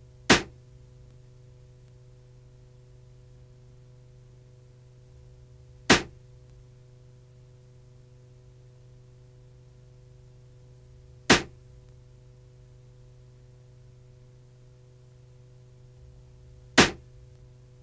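Four air rifle shots, evenly spaced about five and a half seconds apart, each a single short sharp report as a pellet is fired into a gelatin block.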